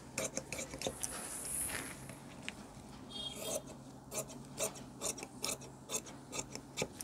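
Red-handled tailoring scissors cutting through thin blouse fabric: a run of short, crisp snips, a few a second, with the blades and cloth rubbing between them.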